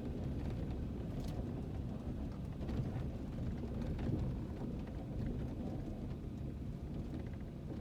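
Low, steady rumble of a vehicle driving slowly over a very bumpy dirt road, heard inside the cabin, with a few short knocks and rattles as it jolts over bumps.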